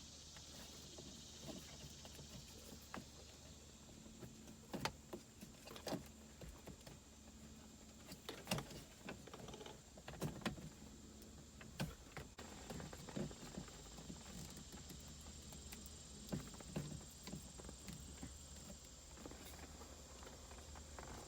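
Irregular light clicks, taps and rubbing from an aux cable being fed through a car's dashboard trim by hand, heard over a faint steady hum.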